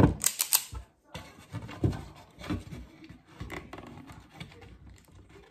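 Wire strippers working on speaker wire ends at a plastic speaker housing: a quick run of sharp clicks at the start, then scattered small clicks and taps of the tool and plastic being handled.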